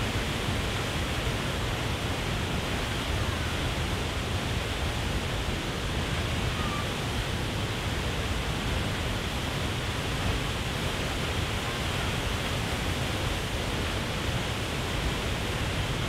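Waterfall: a tall column of water falling over a rock ledge, a steady, unbroken rush.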